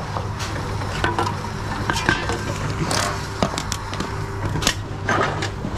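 Reverse vending machine running with a steady hum while drink cans are fed in one at a time, with short clatters and knocks as each can drops in and is taken by the machine.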